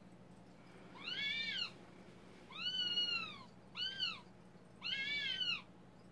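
Eurasian eagle-owl scolding with four squealing, meow-like calls, each rising and then falling in pitch, as a hard chew ring is tugged from her beak.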